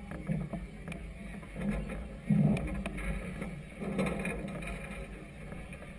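Choppy river water slapping and sloshing against the hull of a moored vessel, in uneven surges with a few sharp knocks, over a low wind rumble. The loudest surge comes about two and a half seconds in.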